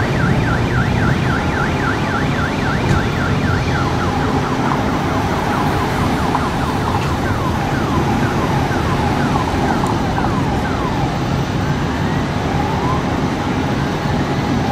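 Electronic emergency-vehicle siren sounding a fast yelp of about three sweeps a second, which slows after about four seconds into repeated falling sweeps and turns into rising wails near the end. Heard over a steady low rumble of idling engines and street traffic.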